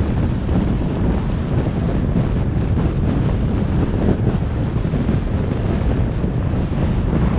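Wind buffeting the microphone of a camera on a vehicle moving along a road: a steady, low rushing noise with no distinct events.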